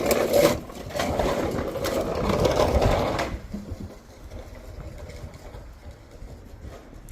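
Toy car rolling down a ramp with a fast, rattling whir of its small wheels, which stops suddenly about three seconds in; faint low ticking follows.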